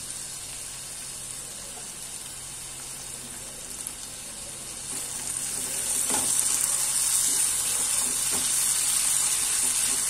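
Diced potatoes frying in oil in a non-stick pan: a steady sizzle that grows louder about halfway through as a silicone spatula stirs them, with a couple of soft scrapes of the spatula.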